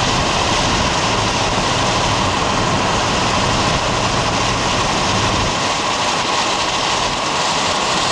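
Steady rushing wind and road noise from a moving vehicle, even and unbroken throughout.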